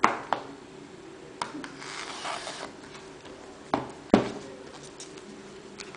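Utility knife and hands working on a product box to open it: a few sharp clicks and knocks, with a short scrape about two seconds in.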